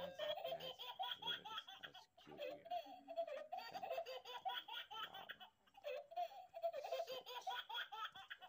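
High-pitched, giggling laughter in quick pulsing runs, pausing briefly about two seconds in and again around five and a half seconds in.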